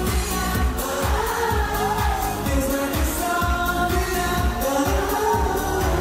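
Live concert performance of a Korean pop ballad: a voice singing a slow melody over amplified accompaniment with a steady bass-drum beat.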